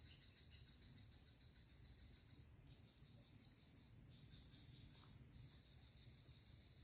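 Steady high-pitched insect chorus, with faint short chirps recurring about once a second, over a low rumble.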